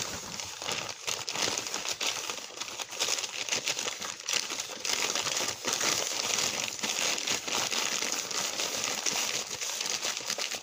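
Steady crinkling and crumpling, full of small crackles, as the hands work something crinkly.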